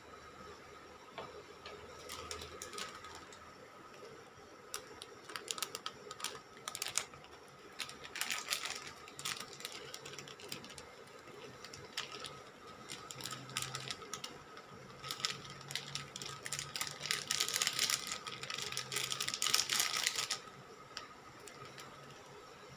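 Crinkling and crackling of a plastic ramen seasoning sachet as it is handled, torn open and shaken out over the pan, with a dense run of crackling near the end. Earlier there are lighter clicks of a fork stirring noodles in the pan.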